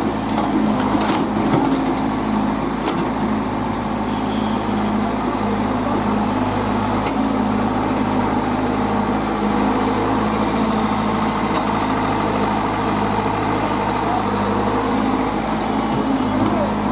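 Tata Hitachi EX70 excavator's diesel engine running steadily while the machine digs, with a few brief knocks from the work.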